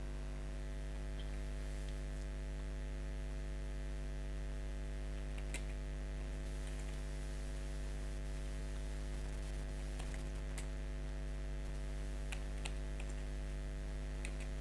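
Steady electrical mains hum with a ladder of higher overtones, and a few faint, scattered computer keyboard key clicks as commands are typed.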